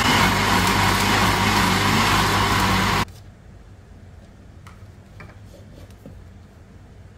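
Countertop blender with a plastic jar running at full speed, pureeing green peas, ginger and green chillies with water into a fine paste, then switching off abruptly about three seconds in. After it, a few light clicks and knocks as the lid comes off the jar.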